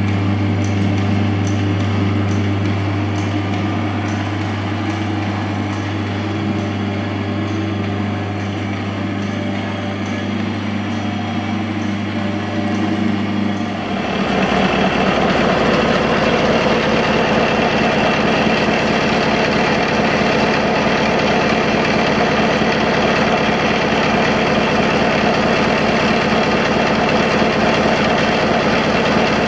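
A steady low hum, then about halfway through it gives way abruptly to a stationary engine running steadily with rapid, even firing beats.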